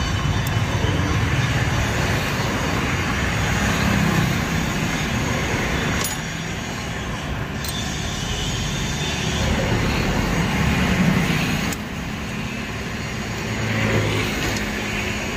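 Steady motor-vehicle engine noise that swells and eases a few times.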